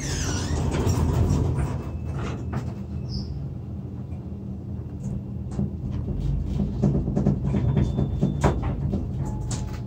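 Elevator car travelling down between floors: a steady low hum and rumble, with frequent light clicks and rattles.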